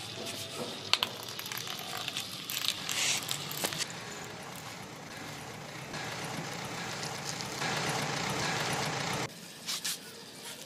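Small electric motors of a wire-powered wooden toy loader running, its plastic wheels and bucket rolling and scraping over concrete and sand, with scattered clicks. A louder steady stretch near the end cuts off suddenly.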